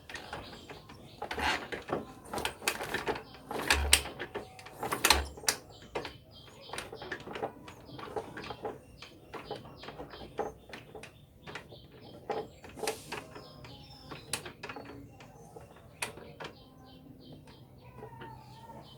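Irregular metallic clicks and knocks of hand tools and engine parts on a motorcycle's open valve gear, the loudest in the first few seconds. The crankshaft is being turned to line up the timing marks for a tappet adjustment. Birds chirp faintly in the background.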